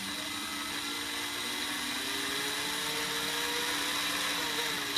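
12 V cordless drill's brushed DC motor and gearbox running at part speed under the trigger's pulse-width-modulation speed control, whirring steadily. Its pitch slowly rises as the duty cycle is raised by pressing the trigger further.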